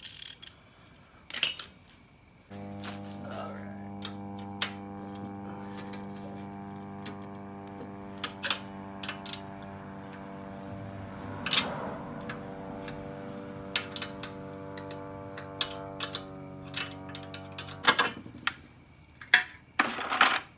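Scattered metal clinks and taps of hand tools working the exhaust fittings of a Tillotson 212 engine. A steady hum starts suddenly about two and a half seconds in and cuts off suddenly near the end.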